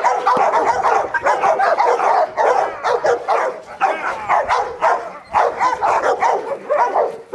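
A Rottweiler barking in a fast, unbroken string of sharp barks while lunging on its leash.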